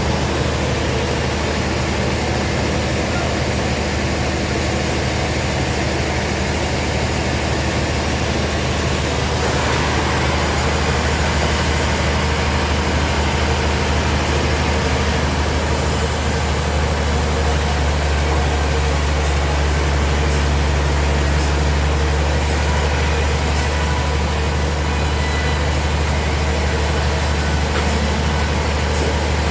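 Heavy sawmill machinery running with a steady, low engine-like drone.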